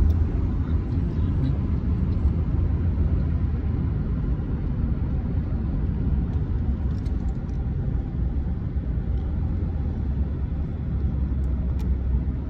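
Steady low road rumble of a car driving along a city street, heard from the moving car.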